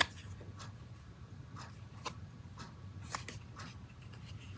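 Faint handling of oracle cards and a paper guidebook: soft rustles and light taps, spaced out.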